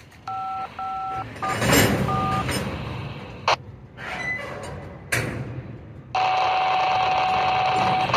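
Railroad radio heard through a scanner: a quick string of touch-tone (DTMF) beeps in the first second or so, the crew dialing up their dispatcher. Then a burst of static and a couple of sharp squelch clicks follow, and a steady tone over hiss runs for the last two seconds.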